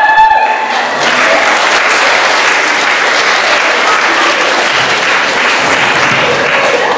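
An audience of students applauding, the clapping swelling in about a second in and stopping abruptly near the end.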